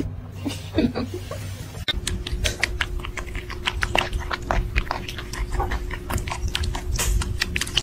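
Kittens suckling at a nursing cat: rapid wet smacking clicks, several a second, starting about two seconds in, over a faint steady hum.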